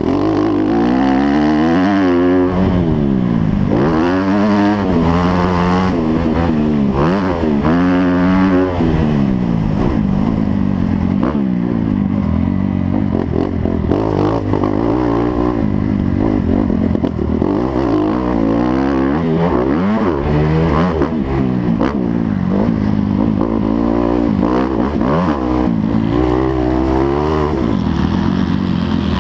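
Motocross motorcycle engine sound, rising and falling in pitch over and over as the throttle is opened and closed.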